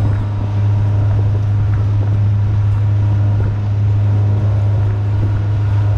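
Mercury 115 outboard motor running steadily under way, a constant low drone with water and wind noise around it.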